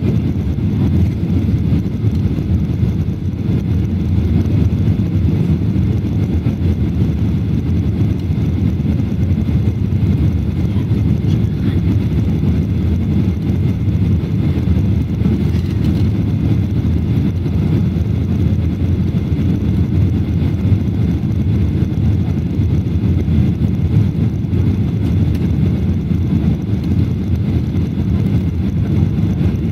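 Cabin noise inside a Boeing 737-800 on final approach to landing: a steady, loud low rumble from the jet engines and from air rushing over the wing and extended flaps.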